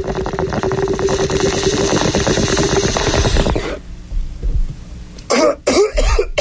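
A bong hit: water bubbling rapidly through a bong for about four seconds, over a steady hum. Near the end come coughing bursts.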